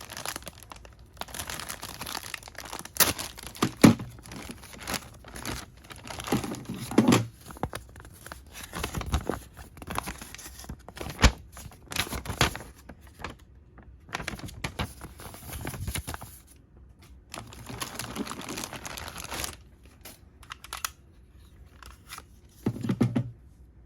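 A plastic packaging bag being torn open and crinkled by hand, in irregular rustling bursts with sharp clicks and snaps. The old tape sealing it has fused to the bag. There is a short low thump near the end.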